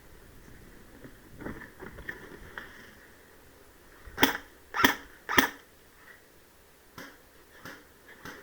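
Three sharp airsoft gun shots, evenly spaced about half a second apart, midway through, among soft rustling and faint ticks of movement.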